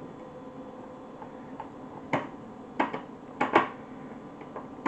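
Several sharp clicks and light taps of a screwdriver working screws loose from the circuit board inside an Atari 410 cassette program recorder's plastic case, most of them between about two and four seconds in.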